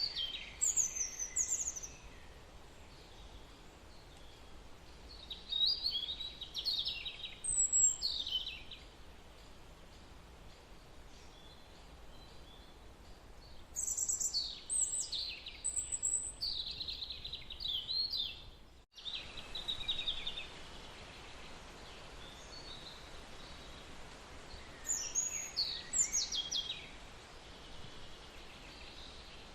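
Birds singing in four short bouts of quick high chirps and trills, over a steady background hiss.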